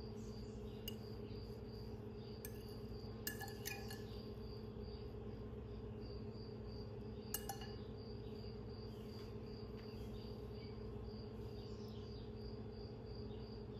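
A metal fork fluffing couscous in a glass bowl, giving a few faint clinks and ticks against the glass. Under it run a steady low hum and a faint high chirping pulse that repeats evenly throughout.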